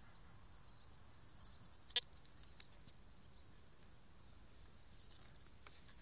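Faint crackling rustles in dry straw stubble, with one sharp click about two seconds in and a second cluster of crackles near the end.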